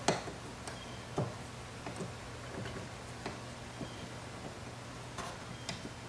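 Steel bezel pusher clicking against sterling silver gallery wire as the wire is pushed in and over to set a stone: a string of light, irregular ticks, the loudest right at the start, over a faint steady low hum.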